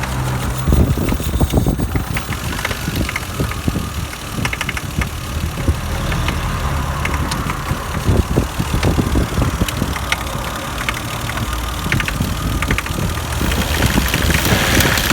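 Toyota 1JZ-GE inline-six idling, with an irregular knocking that sounds like a loose nut rolling over the camshafts in the cylinder head; the cause is unexplained.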